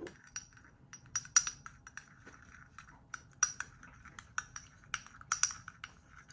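Paintbrush stirring paint in a small glass jar: irregular clicks and taps of the brush against the glass, with light scraping in between.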